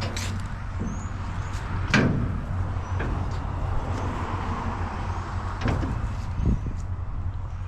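A handful of hard knocks and clunks, the loudest about two seconds in, over a steady low rumble like an idling vehicle engine.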